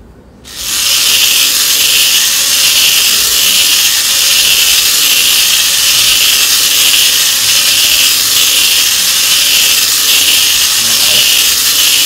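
Small DC gear motors of a home-built colour-sensor robot car running as it spins in place, the turning mode its sensor gives to green light. The loud, steady whirring grind starts suddenly about half a second in, with a slight pulse about every two-thirds of a second.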